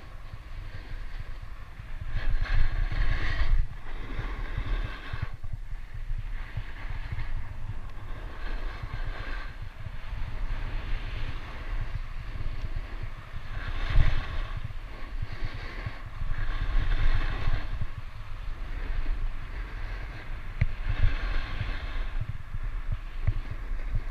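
Skis scraping and hissing over groomed snow through a series of turns, swelling every two to three seconds, with wind rumbling on the microphone.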